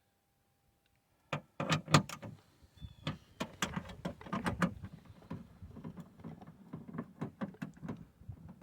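Ratchet and socket clicking and knocking in a truck's door frame as window-regulator bolts are snugged up. The irregular clicks begin about a second in.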